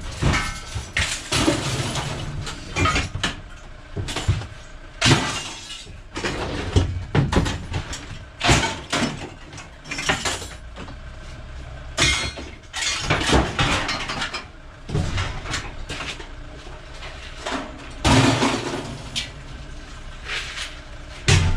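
Scrap steel being thrown down onto a pile, with loud, irregular metallic crashes and clatters.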